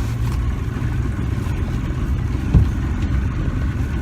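Motorboat engine running slowly and steadily, with one dull thump about two and a half seconds in.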